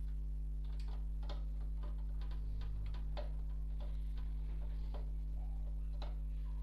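Irregular light clicks and taps from metal PC parts being handled while an SMPS power supply is fitted into the cabinet, about one or two a second, over a steady electrical hum.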